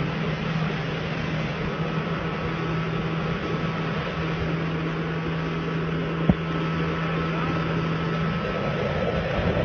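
Motor of a narrow wooden boat running steadily at speed, a constant low hum under a rush of wind and water spray. A single sharp click about six seconds in.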